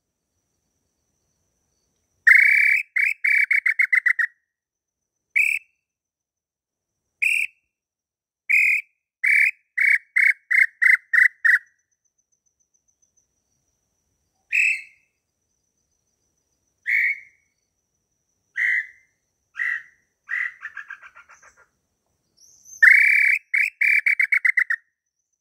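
Whistled inhambu pé-roxo tinamou calls, between a throat-type lure call (pio garganta) and the bird in the undergrowth. A run of quick clear notes comes a couple of seconds in and again near the end, with single notes spaced between. About twenty seconds in, a fast series of notes trails off and fades.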